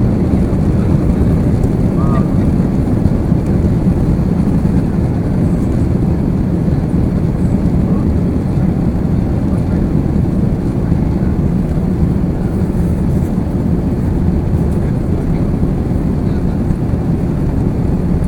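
Steady low rumble heard inside the cabin of an Airbus A350 taxiing, its Rolls-Royce Trent XWB engines running at low thrust, even in level throughout.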